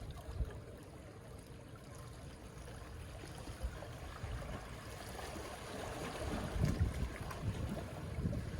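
Gentle beach waves washing in and out, a steady wash that swells louder about six seconds in.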